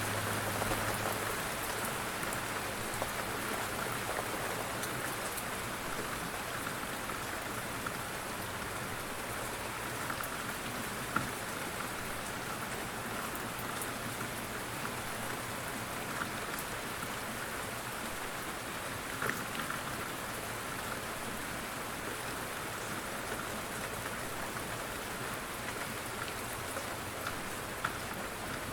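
Steady rain falling on surfaces, with an occasional louder drop standing out now and then.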